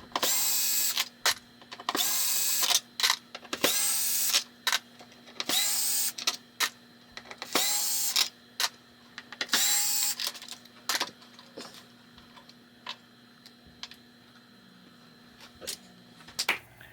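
Power screwdriver spinning out screws from a pinball playfield in short runs of about a second, six times roughly two seconds apart, each starting with a rising whine, with small clicks between. After about ten seconds only occasional clicks of parts being handled remain.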